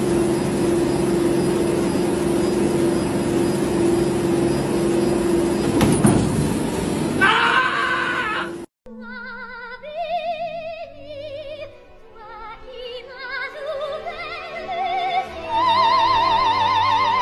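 A running treadmill's steady motor hum and belt noise, cutting off suddenly about halfway through. Then operatic singing with a wide vibrato, climbing higher toward the end.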